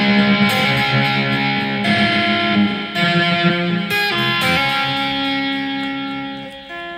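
Instrumental song intro led by guitar, playing sustained chords that change every second or so and ease off near the end.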